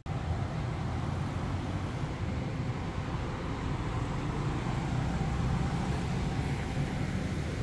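Steady city traffic noise: a low rumble of cars passing on nearby roads, swelling and easing a little.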